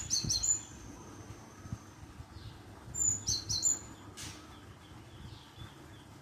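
Glatik bird calls played as a lure recording: two short bursts of sharp, high chirps about three seconds apart.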